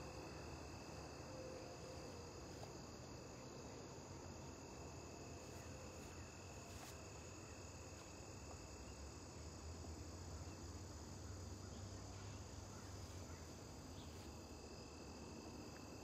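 Faint, steady chorus of crickets trilling at several high pitches, over a low rumble.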